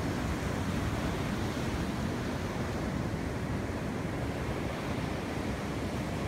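Ocean surf washing onto a beach: a steady rush of noise, with wind buffeting the phone's microphone.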